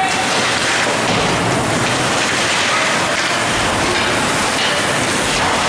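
Ice hockey game heard from the stands of a rink: a steady wash of noise from skates on the ice, sticks and the crowd, with no single sound standing out.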